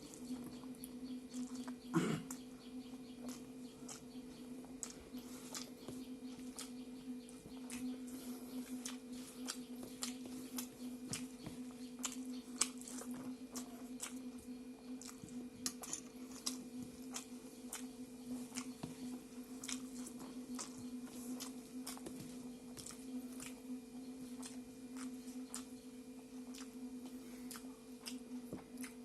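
Close-miked eating sounds: a person chewing rice, greens and buffalo meat with frequent short wet mouth clicks and smacks, a louder one about two seconds in, over a steady low hum.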